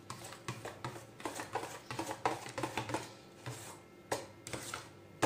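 Spoon stirring mashed pumpkin, yogurt and spices in a stainless steel bowl, with irregular scrapes and light clinks of the spoon against the bowl.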